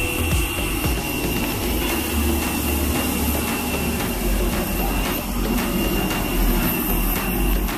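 Aircraft engines running steadily: a low rumble with a thin, steady high whine over it.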